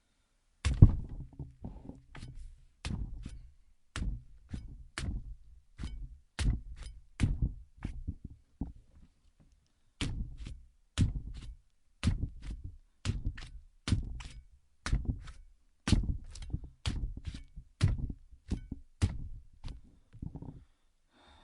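A melon being stabbed over and over, each stab a sharp thunk, about two a second, with a pause of about a second partway through.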